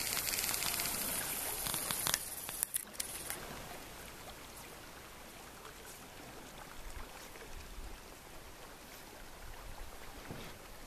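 Steady rush of river water, brighter and louder for the first couple of seconds, then settling to a quieter even flow. A few sharp clicks come about two to three seconds in.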